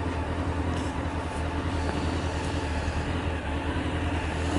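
A steady low mechanical drone with a constant hum.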